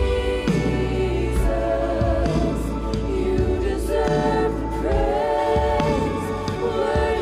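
Live contemporary worship music: several singers on microphones holding long notes in harmony over a band with a steady low bass line and light cymbals.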